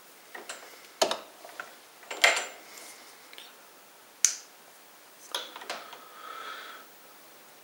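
A handful of separate sharp clicks and short knocks from handling equipment, the sharpest about four seconds in, with a faint short buzz near the end.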